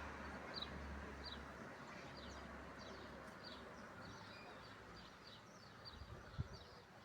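Gentle rain falling with a soft hiss that slowly fades, while a small bird chirps over and over in short, high notes. A single soft thump about six seconds in.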